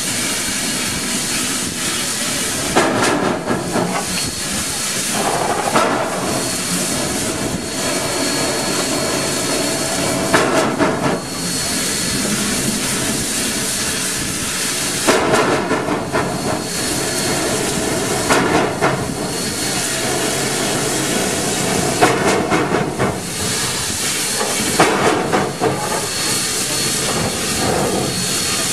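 Small steam locomotive No. 201 working slowly under a heavy load. A steady hiss of steam runs throughout, with a louder exhaust chuff every few seconds.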